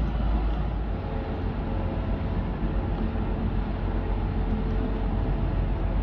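The large car ferry Ferry Kyoto's propellers churning the water: a steady low rumble with a faint hum over it. The deepest part of the rumble eases a little about a second in.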